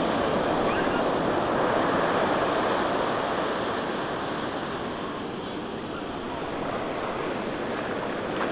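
Shallow surf washing up over sand at the water's edge, a steady rush of foaming water that eases off about halfway through and swells again near the end.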